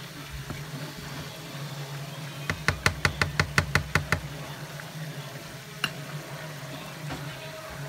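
Battered catfish pieces frying in a wok of hot oil with a faint sizzle, under a steady low hum. About two and a half seconds in, a slotted spatula knocks against the wok in a quick run of about a dozen sharp taps, roughly seven a second, with one more click near six seconds.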